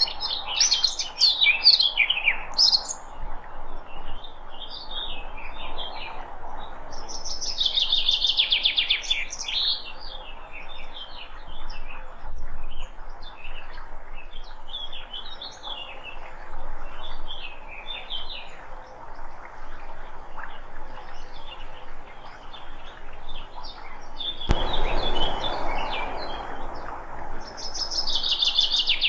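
Several wild birds chirping and singing, with many short calls and trills overlapping over a faint steady background hiss. The recording changes abruptly about 25 seconds in, where another stretch of birdsong begins.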